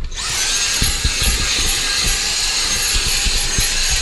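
Dyson cordless stick vacuum cleaner switching on in turbo mode: the motor spins up in a fraction of a second and runs at a steady high whine, with a few low bumps as the nozzle works over the car's interior.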